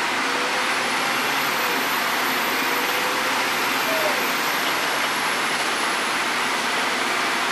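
Scania K310UD double-decker bus's engine and drivetrain running under way: a steady rushing noise with a faint whine that wavers slightly in pitch.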